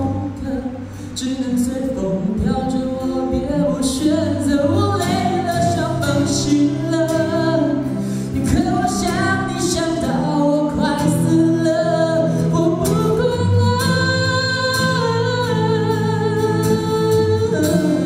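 A pop ballad performed live: one voice singing long, gliding phrases over acoustic guitar accompaniment.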